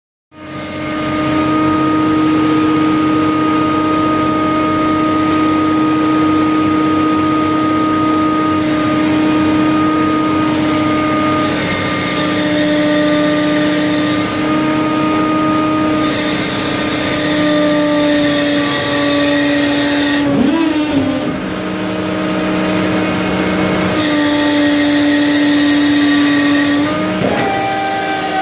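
Trawler's deck machinery running steadily as the net drum winds the trawl net aboard: a loud, steady hum with a whine over it. The pitch dips and recovers about twenty seconds in, and shifts again near the end as the winch speed changes.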